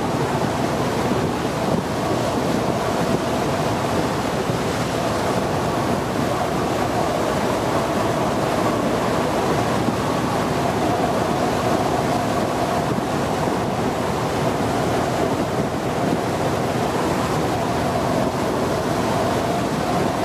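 Steady rush of wind on the microphone and water churning past a small boat under way, with the boat's engine running underneath as a faint steady hum.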